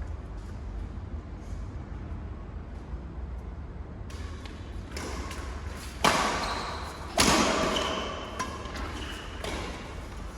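Badminton play echoing in an indoor hall: a steady low hum and faint taps at first, then two sharp, echoing hits, one about six seconds in and one about seven, with a few short high squeaks after them.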